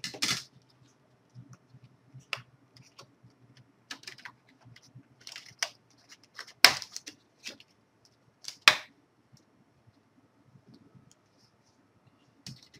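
Plastic screen bezel of an Asus U30JC laptop being pried off its clips: a scatter of small clicks and plastic creaks, with two loud snaps about two seconds apart in the middle as clips let go.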